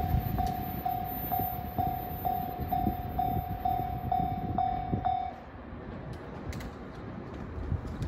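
Japanese level-crossing warning bell ringing a steady electronic ding about twice a second, over the low rumble of a train moving away. Bell and rumble stop together about five seconds in, the sign that the train has cleared the crossing.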